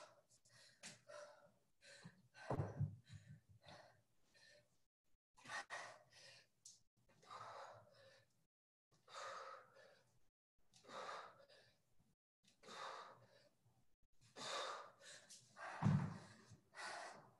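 A person breathing hard from exertion in a workout, a heavy exhale every second or two. Two dull thuds stand out, one about two and a half seconds in and a louder one near the end.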